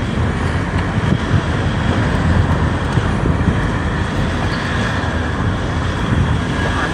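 Steady rumble of a road vehicle running, with some wind noise on the microphone.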